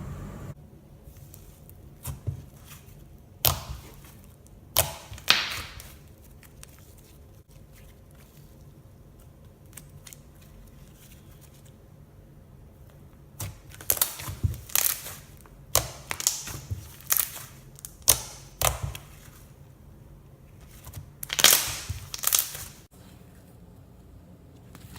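Layered slime being squeezed and pressed by hand, giving sticky pops and crackles in scattered clusters with quiet gaps between them.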